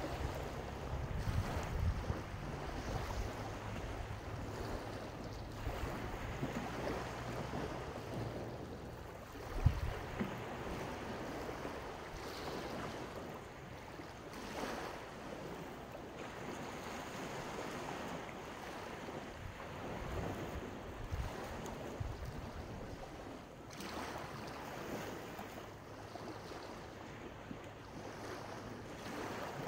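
Sea waves washing onto a beach in a steady rush, with wind buffeting the microphone, heaviest in the first few seconds. A brief knock about ten seconds in.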